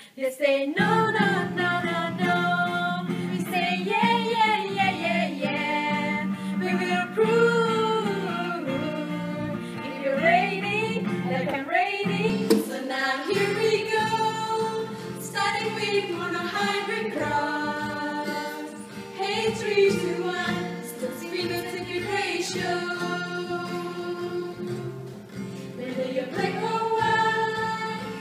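Several young women singing a song together, accompanied by an acoustic guitar.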